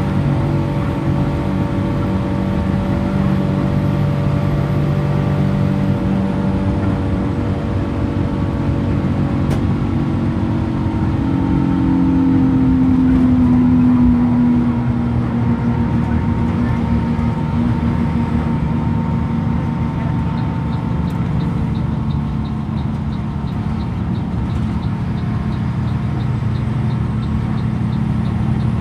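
Front-mounted diesel engine of a Mercedes-Benz OF 1623 RF coach running under way, heard from inside the passenger cabin with road noise. The engine swells to its loudest about halfway through, its pitch sagging a little, then settles back to a steady drone.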